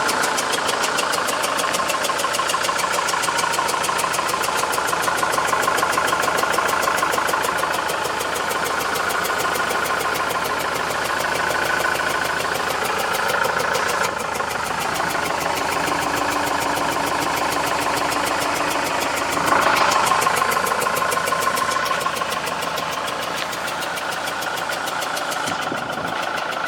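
Iveco F1C 3.0-litre four-cylinder diesel of a Kiefer Boki HY1251 running with a fast, even rattle, the engine rattle the seller lists along with low power. The sound changes about halfway through and briefly gets louder near the two-thirds mark.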